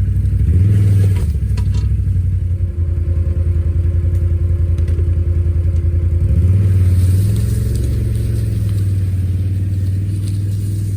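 ATV engine running under load as it drags logs on a receiver-mounted log hitch, the revs rising as the throttle opens shortly after the start and again about two-thirds of the way through. A few light knocks about two seconds in.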